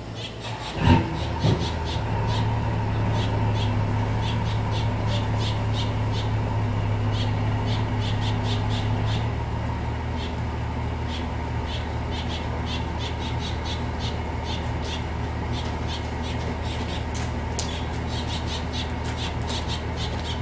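Pickup truck's engine running steadily as it strains on a rope pulling a cement block, its pitch stepping up about two seconds in and settling back down about nine seconds in. Two sharp knocks come about a second in, and a bird squawks in short repeated calls over the engine.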